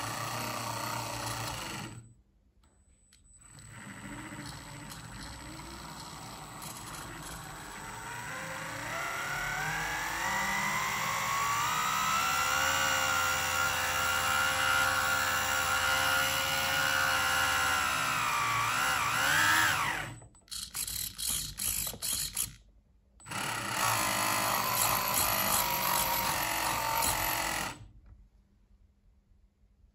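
Electric motor driving a 3D-printed RC boat Z-drive through its printed gears and propeller shaft, running with a whine that climbs in pitch as the throttle comes up, holds steady, wavers and then cuts off. Several short bursts follow before another steady run that stops near the end.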